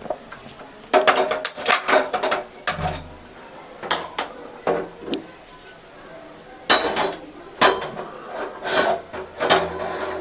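An iron tawa clanking and scraping against the gas stove's metal pan supports as it is set down and shifted over the burner: an irregular run of sharp knocks and scrapes. A gas lighter clicks in the first couple of seconds as the burner is lit.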